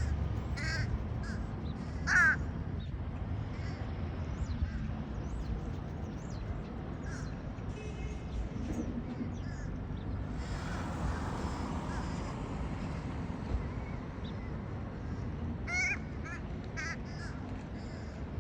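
A bird giving a few short calls: the loudest about two seconds in, then a pair near the end, over a steady low rumble. A brief rush of noise comes about halfway through.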